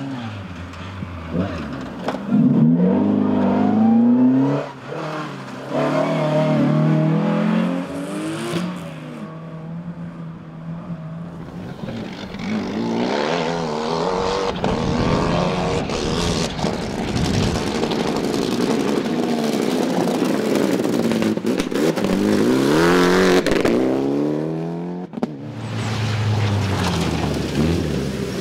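Rally car engines accelerating hard and shifting gears as several cars in turn drive a gravel stage, among them a BMW 3 Series (E30) and a Mitsubishi Lancer Evolution. Engine pitch climbs and drops again and again.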